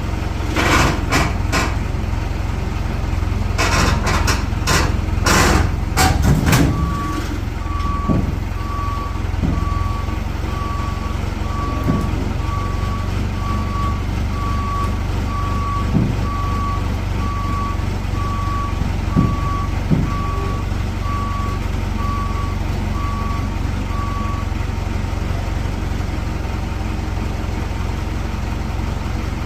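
A heavy machine's diesel-like engine runs steadily while loud metal clanking and rattling comes in the first several seconds as the strapped truck bed is lifted. Then a backup alarm beeps about once a second for most of the rest, with a few single knocks.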